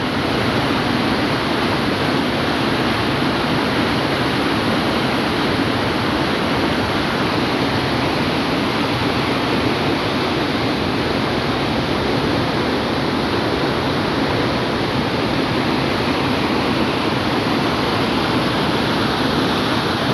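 Capibaribe River in flood, its swollen muddy water rushing steadily over and around rocks.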